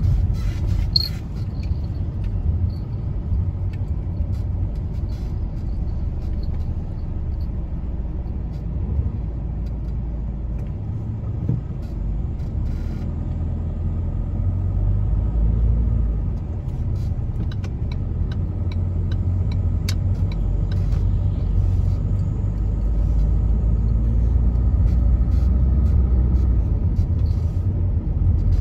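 Steady low rumble of a car driving in traffic, heard from inside the cabin: engine and tyre noise, a little louder in the second half, with a few faint ticks.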